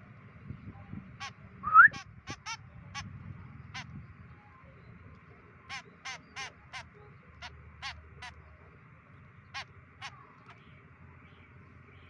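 Fledgling white-breasted woodswallow giving short harsh calls, repeated in loose runs of two to six, with a single loud, short rising squeak just under two seconds in.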